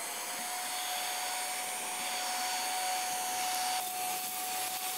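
KMM cordless handheld vacuum running steadily, a rush of air with a steady whine, as it sucks small white pellets off a wooden tabletop.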